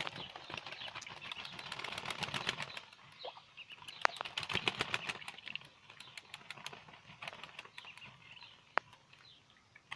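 Muscovy duck flapping and shaking its wings in dry straw: bursts of rapid fluttering and rustling, with two sharp single knocks, one about four seconds in and one near the end.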